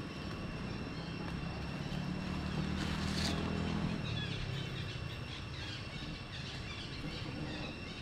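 Outdoor ambience: the low hum of a motor engine that fades out about halfway through, with birds chirping and a steady high insect drone.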